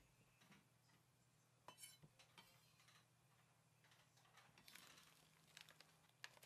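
Near silence, with faint light clicks and rustles from hands sweeping mushroom scraps across a wooden cutting board into a metal tray.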